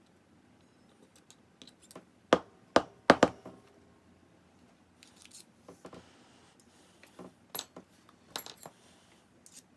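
Small metal regulator parts and tools clinking and clicking against a hard work surface: a few sharp clinks between about two and three and a half seconds in, then lighter scattered clicks.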